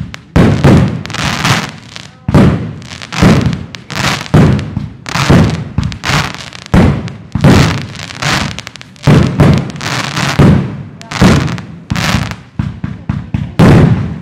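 Aerial fireworks bursting in quick succession, about one loud bang a second, each trailing off. Near the end comes a run of quicker, smaller pops, then a loud burst.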